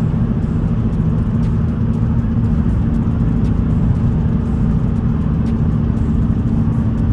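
2014 Ford Focus ST's 2.0-litre turbocharged four-cylinder engine running under way at a fairly steady pitch as the car is driven hard on the road.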